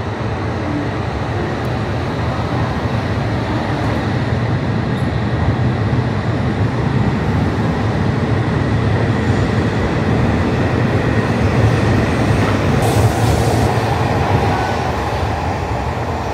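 Shinkansen train rolling slowly past the platform: a steady low rumble of wheels and running gear with a faint even whine, growing a little louder through the middle. A brief hiss comes about thirteen seconds in.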